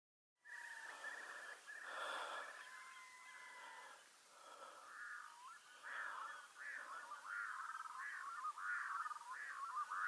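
Birds calling, starting abruptly about half a second in; in the second half a run of short rising-and-falling calls repeats at about two a second.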